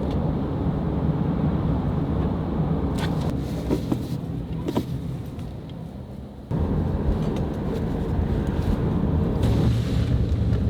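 A car driving: a steady low rumble of road and engine noise, with a few light clicks, and an abrupt jump in level about six and a half seconds in.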